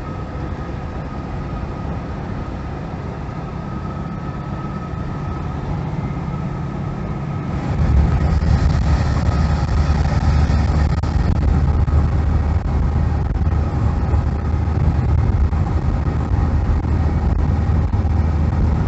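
Engine and road noise heard inside a moving van's cab, a steady drone that steps up and gets louder about eight seconds in.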